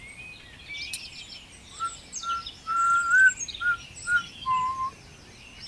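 Songbirds singing: high twittering chirps throughout, with a run of short, clear whistled notes, one held longer, in the middle.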